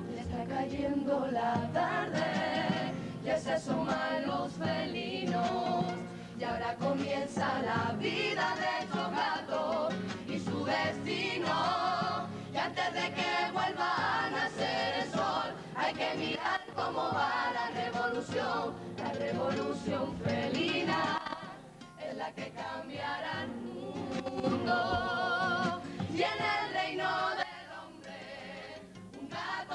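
A carnival comparsa chorus of many voices singing together in harmony, accompanied by Spanish guitars.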